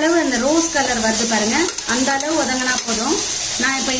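Chopped onions sizzling in hot oil in a pressure cooker as a spoon stirs them. A pitched tune rising and falling in short phrases plays over the sizzle and is the loudest sound.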